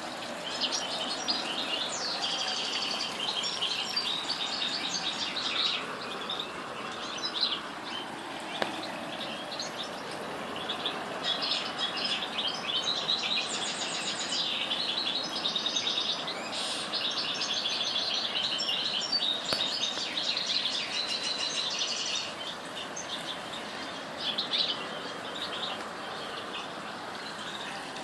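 Small birds chirping and calling in quick, high runs of chirps and trills, almost without a break, easing briefly now and then.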